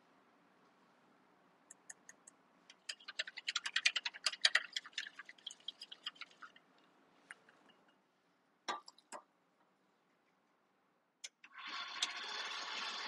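Small wire whisk ticking rapidly against a ceramic ramekin as an egg yolk is beaten, followed by a few knocks as it is set down. Near the end a KitchenAid stand mixer clicks on and runs steadily with its pastry beater working flour and butter.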